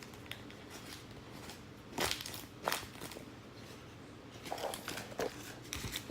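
A handmade paper squishy being squeezed and handled: scattered crinkles and crackles of paper and tape, a couple of louder ones about two seconds in and a cluster near the end.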